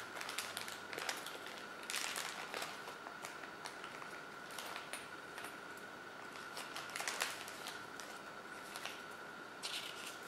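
Clear plastic zip bag being opened and handled: irregular crinkling and rustling with small clicks as the replacement watch strap, a little bag of pins and a paper leaflet are taken out. A faint steady high whine runs underneath.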